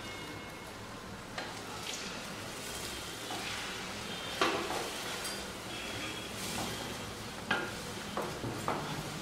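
Beaten eggs sizzling in hot oil in a frying pan while a wooden spatula stirs and scrapes them. A handful of sharper scrapes and knocks of the spatula against the pan stand out, the loudest about four and a half seconds in.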